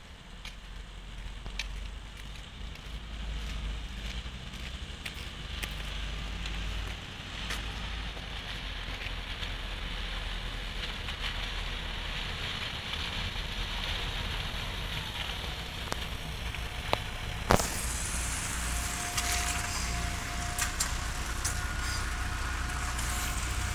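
MAZ-105 articulated city bus approaching on wet asphalt: diesel engine rumbling and tyres hissing through the water, growing louder as it nears. A single sharp click comes about three-quarters of the way in, and a faint steady whine joins as the bus pulls in.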